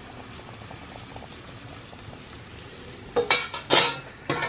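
Covered pot of fish broth bubbling steadily on the stove, then three short metallic clinks near the end.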